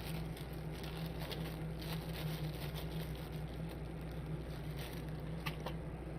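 Faint small clicks and rustles of hands handling parts as a thermal sleeve is slid down over a component's leads, over a steady low electrical hum.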